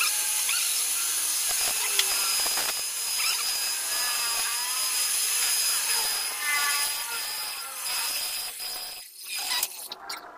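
Small metal lathe running as it turns a brass part, with a steady high whine from the machine. The lathe shuts off about nine seconds in.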